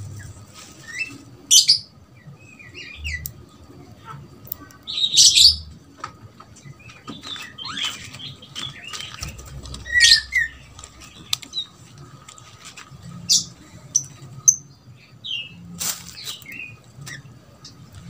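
Javan mynas calling: scattered short squeaky whistles and harsh chattering squawks, a few seconds apart, the loudest near the start, about five seconds in and about ten seconds in.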